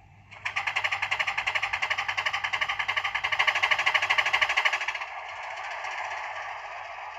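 Simulated diesel engine sound from a model Class 20 locomotive's DCC sound decoder, played through the model's small speaker. It starts abruptly as a loud, fast rhythmic throb and drops to a quieter, steadier running sound about five seconds in.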